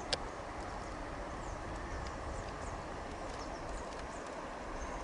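Steady rushing hiss of flowing river water, with a few faint high bird chirps and one sharp click just after the start.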